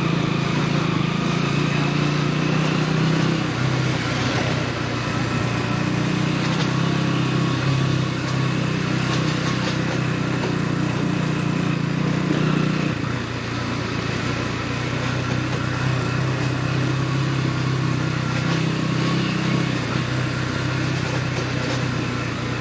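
KTM Duke 200's single-cylinder engine running steadily, with its note shifting about three and a half seconds in and dropping a little about thirteen seconds in.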